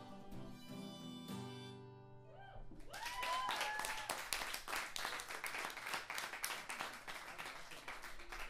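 Acoustic guitar's final chord rings out and fades. About three seconds in, a small audience breaks into applause with a few cheers and whoops, and the clapping carries on.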